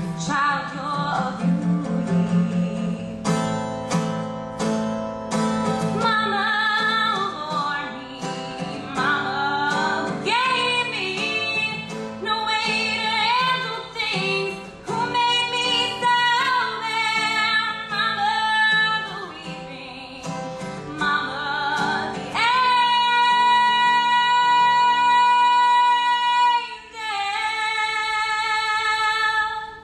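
Solo female voice singing with her own strummed acoustic guitar accompaniment. About two-thirds of the way through she holds one long high note for several seconds, then another sustained note near the end.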